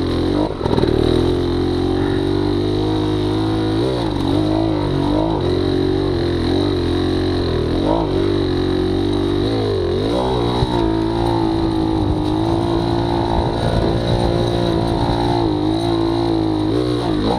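Dirt bike engine running while being ridden, its revs rising and falling several times with the throttle.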